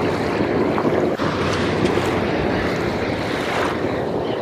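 Steady wind rushing over the microphone, with choppy water washing against the hull of a drifting fishing boat.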